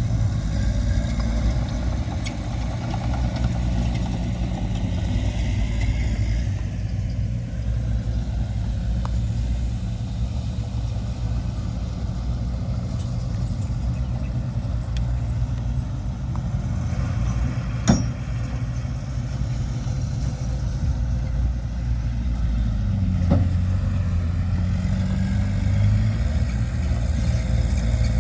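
Heavy earthmoving machine's diesel engine running steadily, with a sharp click about eighteen seconds in and a smaller one a few seconds later, as the engine note dips and rises again.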